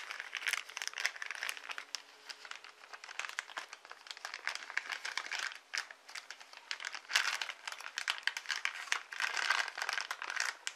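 Thin clear plastic film crinkling and crackling as it is handled, an irregular rustle with louder spells about seven seconds in and near the end.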